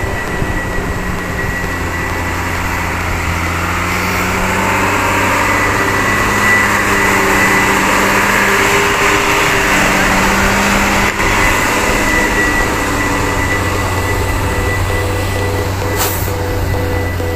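Diesel engine of a Hino 500 dump truck running steadily as the truck drives slowly past through mud, growing louder as it comes closest and easing off again. A short sharp click sounds near the end.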